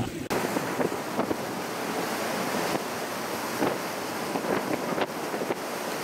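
Open sea waves and wind rushing, with wind buffeting the microphone: a steady noise that cuts in suddenly just after the start.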